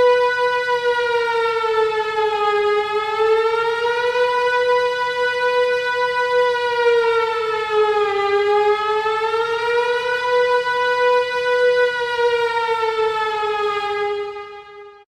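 Emergency Alert System alarm tone: one loud, buzzy siren-like tone with many overtones whose pitch slowly sags and recovers twice, fading out just before the end.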